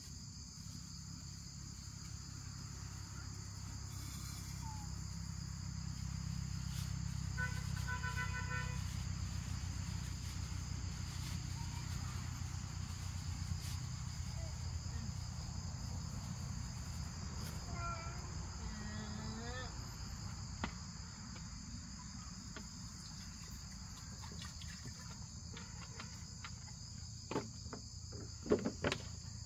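Insect chorus of crickets or cicadas: a steady, high drone at two pitches. A couple of brief pitched calls sound about a third and two-thirds of the way through, and a few sharp knocks near the end.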